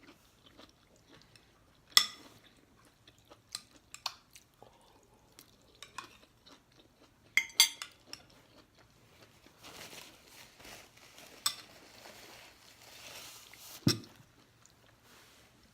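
Eating at the table: cutlery clinking against dishes several times, with a cluster of clinks about halfway through and a louder clink with a dull knock near the end, amid faint chewing and rustling.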